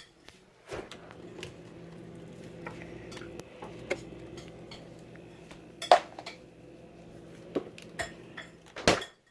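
Scattered clinks and knocks of hard objects against each other over a steady low hum, the loudest clinks about six seconds in and just before the end.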